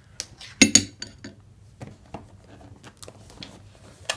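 A large metal knife set down, giving two sharp clinks a little under a second in, followed by light tapping and rustling as a small cardboard box is handled and opened.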